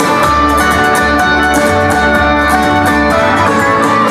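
Instrumental music with a bass line and a steady beat.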